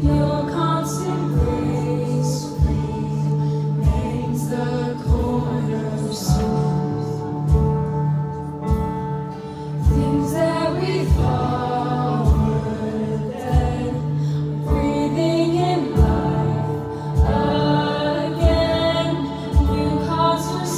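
Live worship song: a female lead vocalist singing with other voices over acoustic guitar and sustained band accompaniment, with a steady low beat about once a second.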